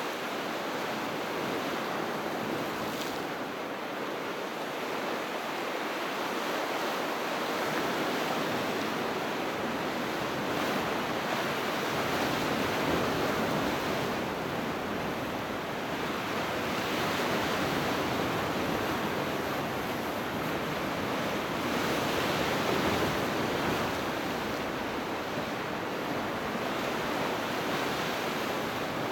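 Sea waves breaking and washing on the shore: a steady rush of surf that swells and eases every few seconds.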